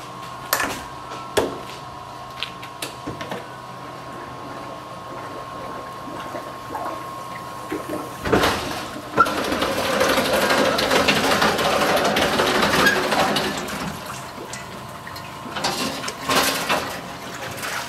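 A hot-wash parts washer cabinet being opened after its cycle: a few latch clicks, a loud knock as the lid goes up about eight seconds in, then water running and dripping off the steaming parts for several seconds. Near the end, a few clanks as the washed oil pan is lifted against the wire basket.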